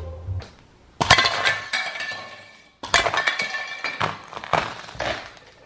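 Brittle poop-shaped figurines being stomped and shattered underfoot. There is a sharp crunching break about a second in, another about three seconds in, and more cracks a second later, each followed by clinking, ringing fragments.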